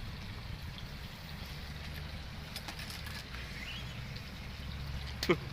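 Steady low outdoor rumble with a few faint ticks. Near the end there is one short, loud sound whose pitch drops quickly.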